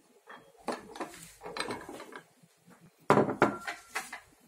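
Tableware being set down and moved on a wooden dining table: scattered knocks and clinks of dishes and utensils, with the loudest cluster about three seconds in.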